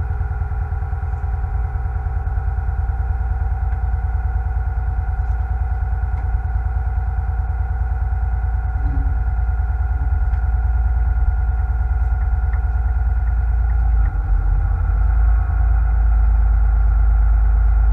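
Fishing boat's engine running steadily under way with an even, fast pulse, growing louder and heavier about fourteen seconds in.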